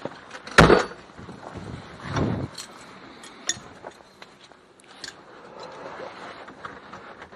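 A 1972 Fiat 500's door is pulled shut with one loud thump about half a second in. A second, duller thump follows, then rustling and small clicks as the driver settles in the seat with the engine off.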